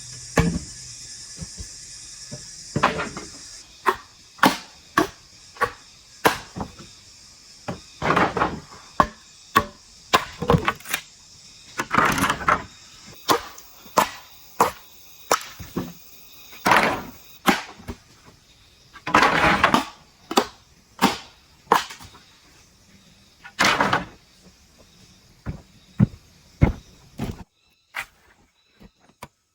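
Bamboo being chopped and split: a long run of sharp, irregularly spaced strikes, several followed by a longer cracking rasp of about a second, stopping shortly before the end.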